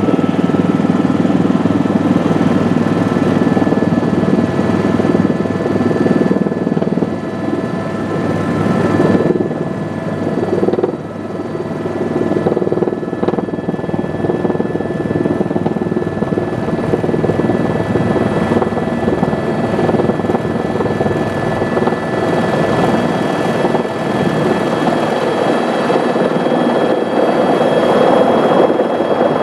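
Eurocopter EC130 EcoStar helicopter heard from inside the cabin while descending to land: a steady turbine whine at several pitches over the dense rotor rumble, dipping briefly about a third of the way in.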